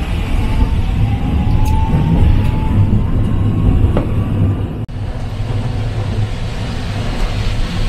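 Toden Arakawa Line tram running, with a steady low rumble and a thin whine that rises slowly in pitch over the first few seconds. There are a couple of faint ticks, and a brief dropout in the sound about five seconds in.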